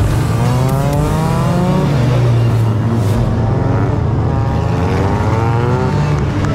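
Endurance race cars accelerating past, their engines revving up twice in rising sweeps over a steady low drone of other engines.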